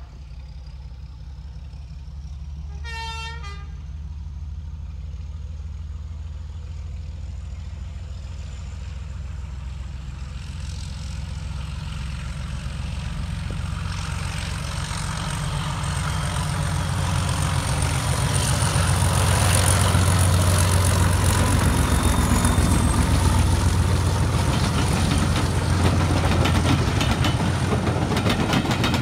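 Diesel locomotive sounds its horn once, briefly, about three seconds in. Its engine then grows steadily louder as it approaches under power and passes hauling coaches, with a faint high whistle slowly rising in pitch.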